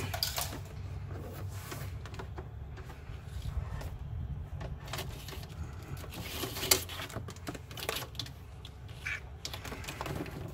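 Irregular clicks and rattles of hands handling wires and corrugated plastic cable loom, with one sharper knock about two-thirds of the way through, over a steady low hum.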